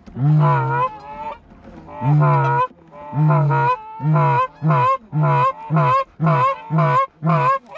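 Hand-blown Canada goose call, loud and close: about nine honks, each a low note breaking up into a higher one, coming faster after the first few.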